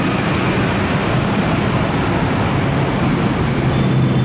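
Loud steady rushing noise with a low hum underneath.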